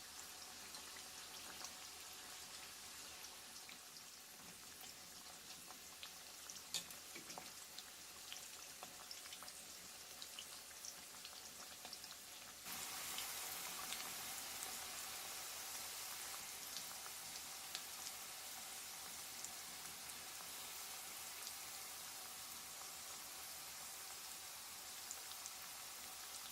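Stuffed bitter gourds frying in hot oil, a steady sizzle with many small crackles and pops. Halfway through it suddenly gets louder and brighter.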